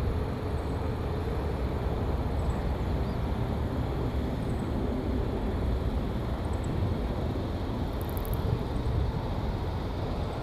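Jet engines of a Boeing 777-200 airliner on final approach with its gear down: a steady low rumble and roar.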